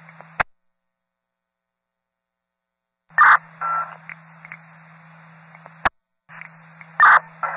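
Police two-way radio channel heard through a scanner, with no words: hiss and a low steady tone while a transmitter is keyed, cut off by a squelch click about half a second in, then dead silence. The channel keys up again about three seconds in with a loud short burst, drops out with a click near six seconds, and keys up once more with another loud short burst near the end.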